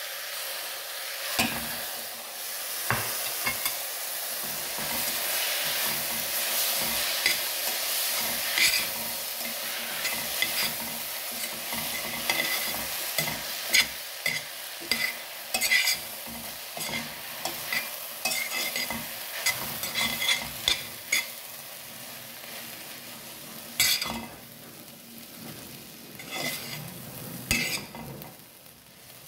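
Instant noodles with shredded cabbage and carrot sizzling in a hot steel pan as they are stir-fried, with frequent clicks and scrapes of the utensil against the pan. The sizzle quietens in the last few seconds.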